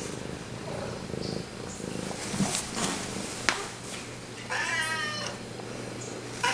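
Domestic cat purring steadily close to the microphone, with one meow about two-thirds of the way through. Two short clicks come before the meow.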